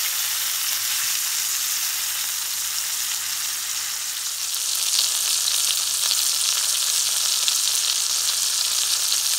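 Entrecôte (ribeye) steak sizzling and crackling in hot oil in a cast-iron skillet as its second side sears. The sizzle grows louder about halfway through.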